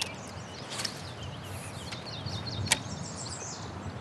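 Small birds chirping and twittering over a low, even background hiss, with one sharp click about two-thirds of the way through.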